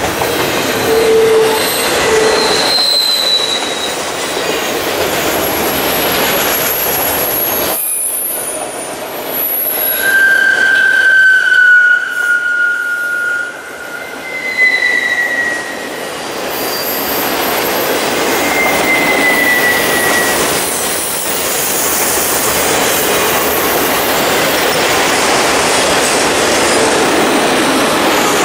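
Cars of a Norfolk Southern intermodal freight train, double-stack container well cars and then autorack cars, rolling past with a steady noise of steel wheels on rail. Several high-pitched wheel squeals come and go, the loudest and longest about ten to thirteen seconds in.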